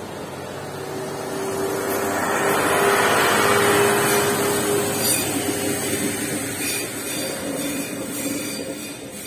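Passenger train passing over a level crossing. Its wheel and running noise swells to a peak three to four seconds in, with a steady tone through the loudest part, then fades as the last car goes by.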